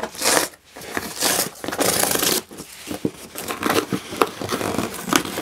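Cardboard ripping as the perforated tear strip is pulled along an Amazon shipping box, in three long tears over the first two and a half seconds, followed by shorter scratches and knocks of the cardboard being handled.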